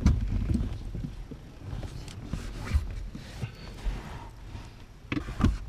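Irregular light knocks, clicks and rustling of hands and tools working under a car's dashboard, over a low rumble of handling noise, with a couple of sharper knocks near the end.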